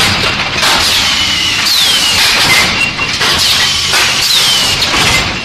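Automatic hot forging line for railway screw spikes running in a repeating cycle. Each cycle brings a burst of metallic clatter with a short falling whine, over a steady machine hum.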